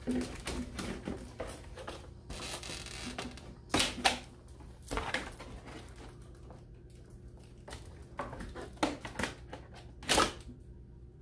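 Cardboard packaging rustling and scraping, with a run of sharp clicks and snaps as the plastic straps holding an RC toy truck into its box insert are cut and worked loose. The loudest snaps come about four and five seconds in and again near the end.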